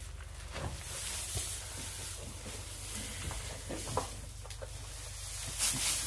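Straw bedding rustling and crackling in a calf pen, with a louder burst of rustling near the end as straw is tossed, over a steady low hum.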